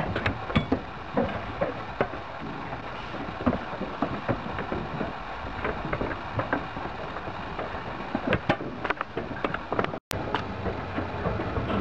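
Sheep moving about in a crowded livestock truck trailer: irregular knocks and clicks of hooves and bodies against the crate, over a steady rushing background noise. The sound cuts out for an instant about ten seconds in.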